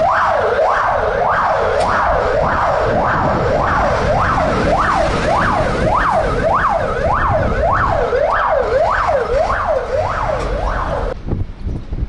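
Fire engine siren wailing in fast rising-and-falling sweeps, a little under two a second, which cuts off suddenly about eleven seconds in.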